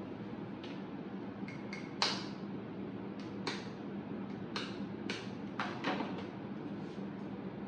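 A series of sharp taps and clicks on a mixing bowl as an egg is cracked and added to creamed butter and sugar, the loudest about two seconds in.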